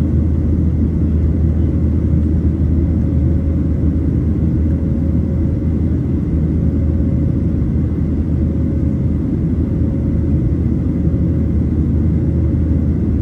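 Airplane rumbling steadily and loudly low down, with a faint steady whine above it and no change in level.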